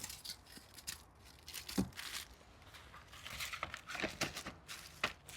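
Bulb packets being torn open and rustled, in short spells of crinkling with a few light sharp clicks.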